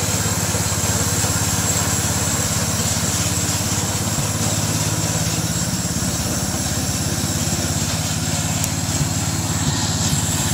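Small gasoline engine of a homemade bandsaw mill running steadily at an even speed.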